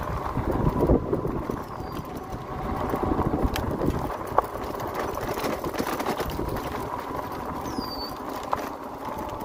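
Fat 4-inch tyres of an electric fat bike rolling over a gravel and dirt track, a steady crunching rumble with scattered small pops and knocks from stones and bumps, and a faint steady whine from the motor.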